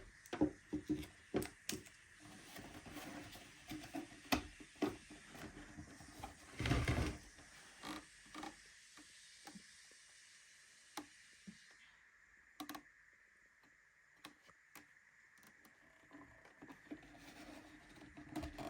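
Hands handling the coffee machine and its packaging: scattered light clicks and knocks, with a louder rustle lasting about a second near the middle.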